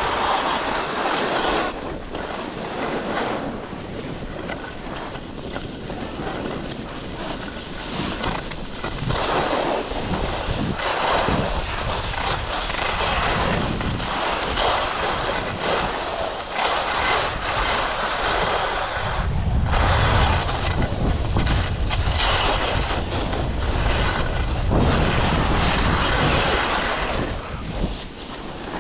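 Skis scraping and sliding on the hard-packed race course while sideslipping, with wind buffeting the microphone; the low rumble gets heavier about two-thirds of the way through.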